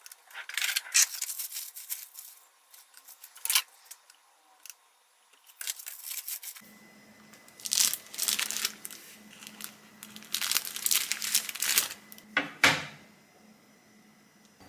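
Paper wrapper of a round soft cheese being opened and handled, crinkling and rustling in a series of short bursts.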